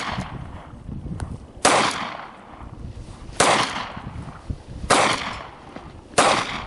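Four shots from a Smith & Wesson M&P Bodyguard .380 ACP pocket pistol, fired at a slow, even pace about one and a half seconds apart, each a sharp crack trailing off in a short echo. The tail of the previous shot fades away in the first moment.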